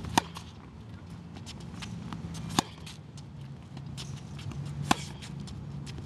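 Tennis balls struck by rackets in a fed hitting drill: three sharp pops about two and a half seconds apart, with fainter ball bounces and far-court hits between them, over a steady low hum.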